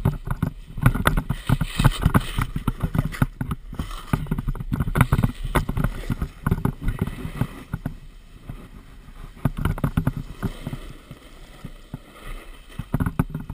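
Rapid irregular knocking and rumbling from an action camera being jostled and buffeted by wind on a snowboard run, easing briefly about eight and twelve seconds in.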